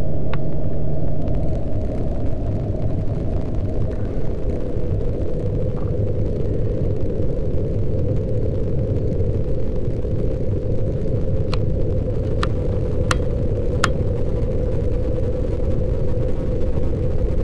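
Steady low rumbling noise, with four short sharp clicks in quick succession about two-thirds of the way through.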